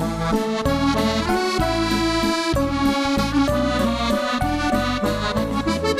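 Background accordion music: a lively melody played over a steady, repeating bass beat.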